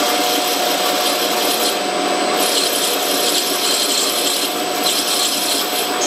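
Metal lathe taking a turning cut on a brass workpiece: the cutting tool scrapes steadily against the spinning metal over a steady machine tone, without a break.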